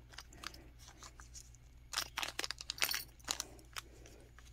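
Small plastic zip-top bags of beads and charms crinkling and clicking as a hand picks through them, with a burst of crackles in the middle.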